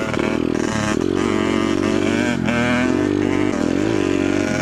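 Dirt bike engine running under way on a trail, holding steady revs that dip briefly about halfway through and again near the end.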